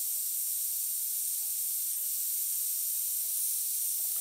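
Heat gun running, giving a steady hiss of blown air, aimed at the glued seam of a plastic battery case to soften it.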